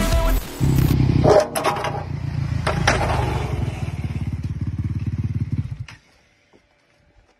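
Dirt bike engine running and pulling away, its pulsing note slowly getting fainter, with two sharp clatters in the first three seconds. The sound cuts off suddenly about six seconds in.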